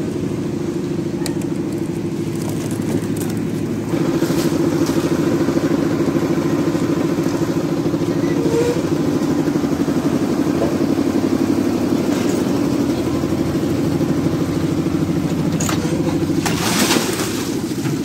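Engine of a concrete mixer running steadily under load. It gets louder about four seconds in. A short noisy scrape or rush near the end.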